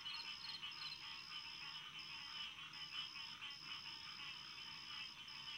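Crickets chirping faintly: a high, steady trill broken by short pauses. In the first second there are also separate chirps, about three a second, over a soft hiss of insect noise.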